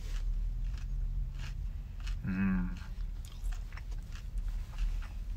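Close-up chewing of crispy fried orange chicken: crunching bites with many small sharp crackles. A brief hummed voice sound a little over two seconds in.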